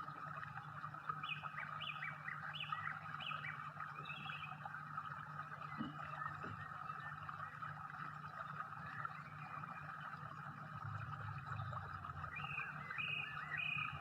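A small bird chirping in short runs of repeated high notes, about half a dozen a little after the start and another run near the end, over a steady low background hum.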